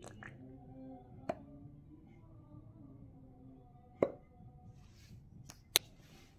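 Ketchup squeezed from a plastic squeeze bottle onto a glass plate: a few soft plops and short sharp clicks, the loudest about a second in and again about four seconds in.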